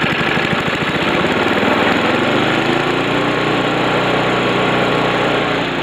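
Snowblower's small engine running cold on choke just after its first pull-start on a replacement recoil: it fires in a rough, even beat at first, then speeds up over about a second and settles into a steady run.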